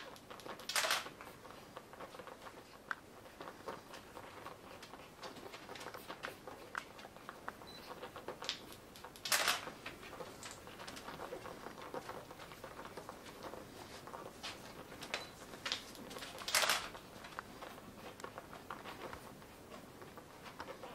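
Nine-day-old Pembroke Welsh Corgi puppies suckling at their mother: a busy patter of small wet clicks and smacks from the nursing mouths. Three brief louder noises stand out, about a second in, near the middle and about three-quarters through.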